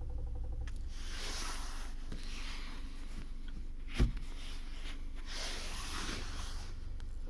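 A single sharp knock about four seconds in, over the low hum of a 2020 Volkswagen Polo 1.6 with a manual gearbox, heard from inside the cabin. It is the knock the car gives on releasing the clutch. Two stretches of rushing noise come and go around it.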